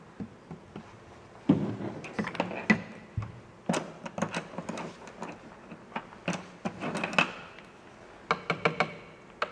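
Light clicks and knocks from small hard objects, coming in irregular quick clusters of several a second and starting about one and a half seconds in.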